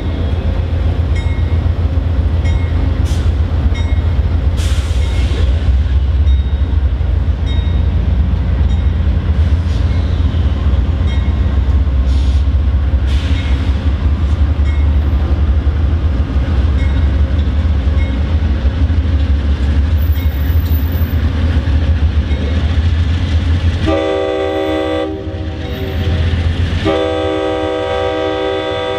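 Amtrak diesel passenger locomotive running with a steady low rumble at the platform. Near the end its horn sounds two blasts, a short one and then a longer one, as the train starts to pull away: the two-blast signal that a train is about to move off.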